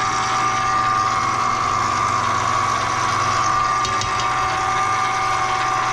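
Stand mixer running steadily on speed 4, its flat beater churning vegetable shortening in a stainless steel bowl: an even motor hum with a steady whine.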